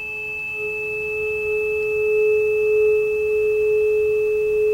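A 426.7 Hz tuning fork (near the note A) rings a steady, pure tone, with the air column of a water-capped PVC tube resonating under it. The tone swells louder about a second in and stays loud, the sign that the tube is at its resonant length.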